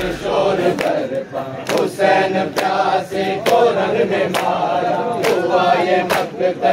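A crowd of men chanting a noha together in unison. Sharp slaps of matam, chest-beating by many hands at once, keep time with the chant a little faster than once a second.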